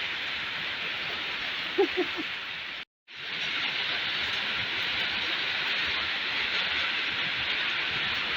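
Steady hiss of heavy rain falling, with two short sharp sounds a little under two seconds in. The sound cuts out completely for a moment about three seconds in, then the rain resumes.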